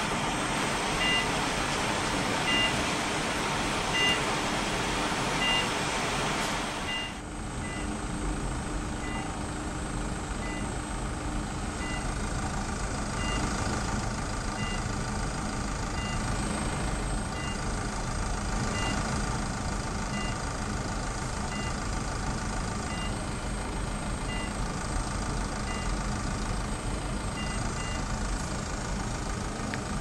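Covidien Emprint microwave ablation generator sounding a short two-tone beep every second or so while it delivers power to the antenna, over a steady hum and hiss of equipment that quietens about seven seconds in.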